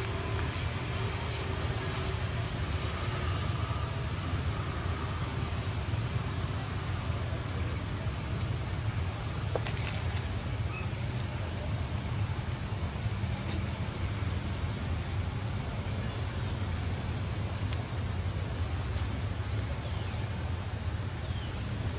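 Steady low rumbling background noise, like outdoor ambience, with a faint high thin whistle about seven to nine seconds in.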